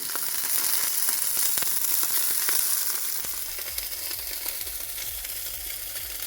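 Burgers frying: a steady sizzle with small spitting crackles.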